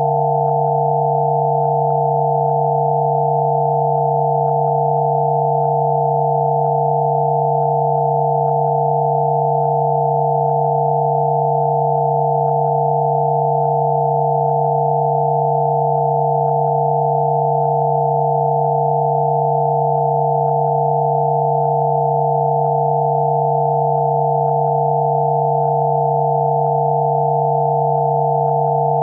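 Generated Rife frequency therapy tones: several pure electronic sine tones sounding together, one low and a cluster higher up, held steady without change.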